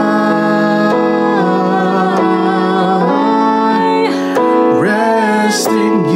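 A woman and a man singing a slow worship song together over held chords played on an electronic keyboard, their voices sliding and wavering on long notes.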